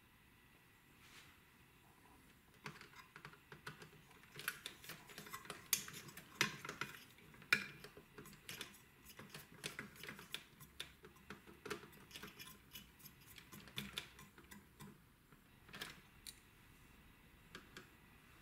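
Faint, irregular clicks and taps of small plastic and metal parts being handled while a mini hi-fi's cassette deck is taken apart. They start a few seconds in, come thickest for several seconds, then thin out near the end.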